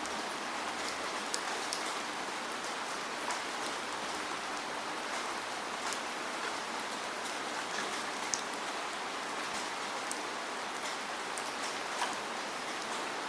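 Steady rain falling, a continuous hiss with scattered louder drops striking close by.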